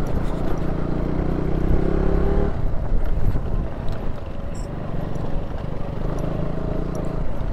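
KTM Duke 200's single-cylinder engine running at low speed on a rough dirt track, under a low rumble of wind and road noise. Its steady note fades about two and a half seconds in and returns near the end.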